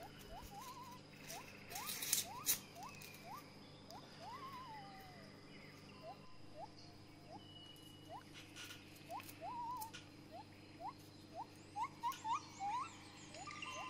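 Animal calls: many short rising chirps, some ending in a brief trill, repeating irregularly over a steady low hum, with a couple of sharp clicks about two seconds in.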